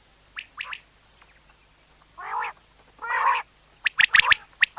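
Common quail calling: a few quieter clipped notes at the start, two longer, lower nasal notes around the middle, then a quick run of sharp, loud notes near the end.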